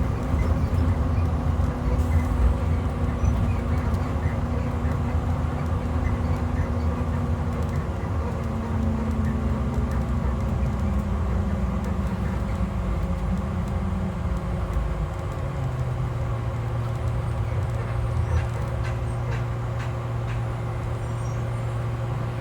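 Rear-mounted MaxxForce DT diesel engine of a 2012 IC RE school bus running under way, heard from inside the bus over a low road rumble. The engine note rises a little about eight seconds in, then falls over several seconds and holds steady at a lower pitch.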